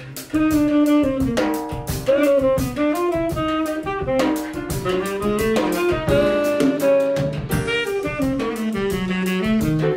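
Live small-group jazz: a tenor saxophone plays a moving melody over a drum kit played with bundled rod sticks on drums and cymbals, with piano in the band.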